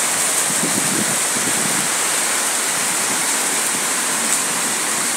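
Heavy rain pouring down onto clay roof tiles, a steady, even rush of water noise.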